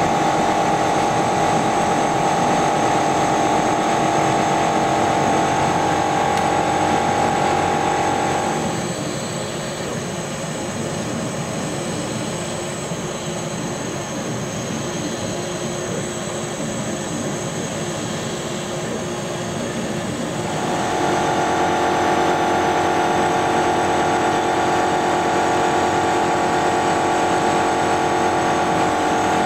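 Chinese CO2 laser cutter running as it cuts puzzle shapes through card: a steady machine drone with a strong steady whine. The whine drops away about nine seconds in, leaving a quieter drone, and comes back about twenty-one seconds in.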